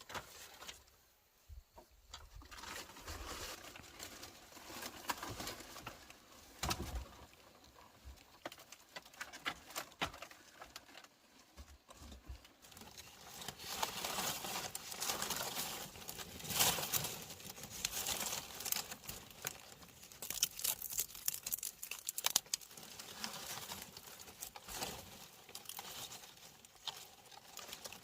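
Rustling and crinkling of dry material being handled, with scattered light taps and clicks, busier and louder in the second half.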